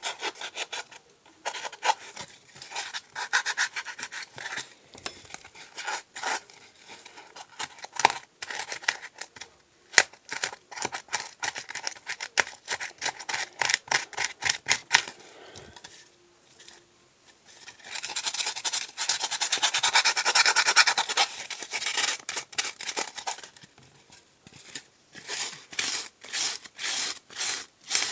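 Sandpaper rubbing over a polystyrene foam boat in short repeated scratchy strokes, with a longer run of continuous rubbing about two-thirds through and quick even strokes near the end.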